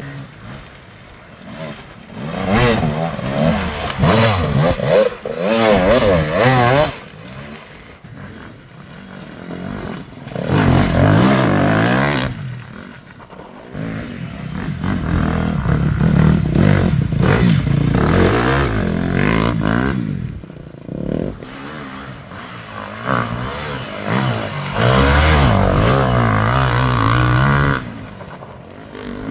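Enduro dirt bike engines revving hard in several loud spells, the pitch rising and falling quickly with the throttle, between quieter gaps.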